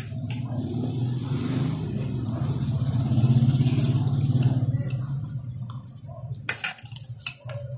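A motor vehicle engine passing close by, its low hum growing louder to a peak about halfway through and then fading.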